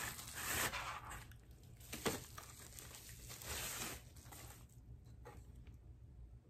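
Paper tearing and crinkling as a wrapped gift box is unwrapped, in several rustling bursts that die down to faint handling noise near the end.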